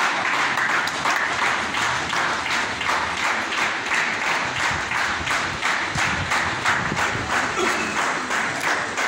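Audience applauding: many people clapping steadily.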